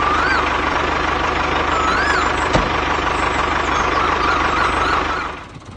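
Small motor of a mini tractor or thresher running steadily with a fast, even pulse, then shutting off near the end.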